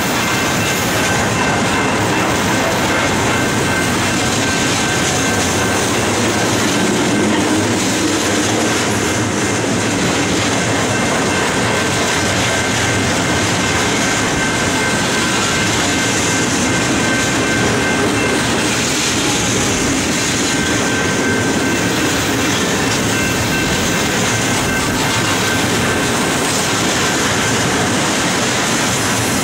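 Cars of a loaded BNSF slab train rolling steadily past at close range: a continuous rumble and clatter of wheels on rail joints, with thin, steady high squeals from the wheels over it.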